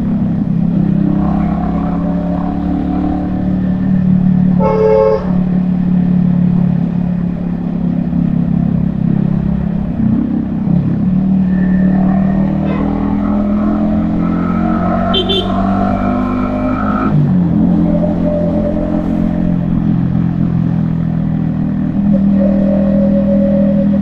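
Yamaha XSR155's single-cylinder engine running under way, its note dropping and picking up again a few times. A short vehicle horn toots about five seconds in.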